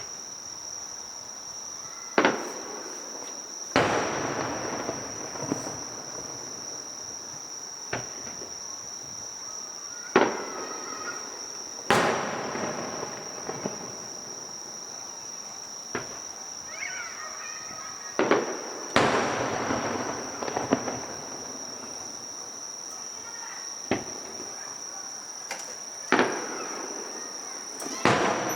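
Fireworks shells bursting in the sky: about eleven sharp bangs at irregular gaps of one to four seconds, several trailing off in crackling and echo. Insects trill steadily and high-pitched underneath.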